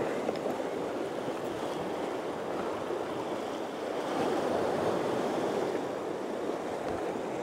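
Sea surf washing and churning against the rocks at the foot of the ledge: a steady rush of water that swells a little about four seconds in.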